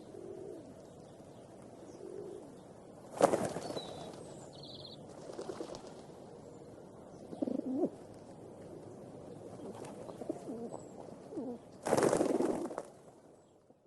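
Feeding pigeons cooing softly now and then, with two louder noisy bursts, a short one about three seconds in and a longer one near the end. The sound fades out at the very end.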